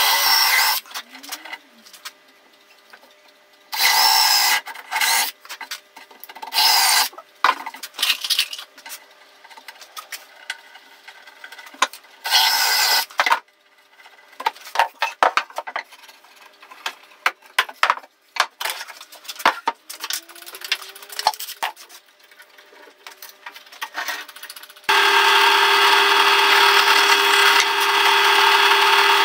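DeWalt cordless drill boring dowel holes into pine in four short bursts, followed by scattered light clicks and knocks of wood being handled. About 25 seconds in a bench drill press starts and runs steadily with a constant hum.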